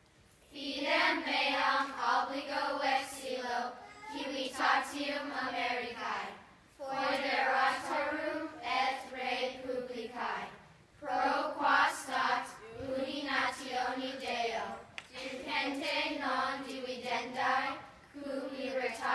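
A class of children reciting the Pledge of Allegiance in Latin in unison, in a chant-like cadence. It comes in five phrases of a few seconds each, with brief pauses between.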